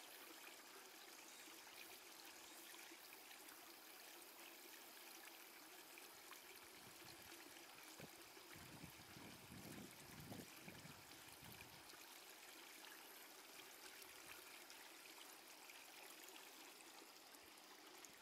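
Near silence: a faint steady hiss, with a faint low rumble for a couple of seconds around the middle.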